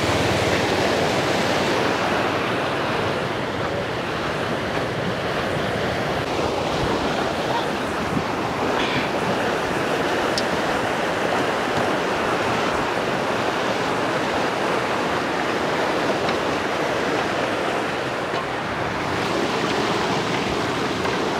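A swollen, muddy river rushing through whitewater: a steady noise of fast, churning floodwater.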